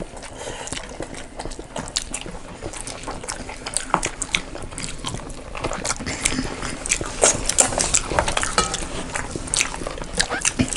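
Close-up eating sounds from a rice-and-curry meal: wet squelching of rice being mixed with gravy, chewing, and small irregular clicks of dishes and utensils.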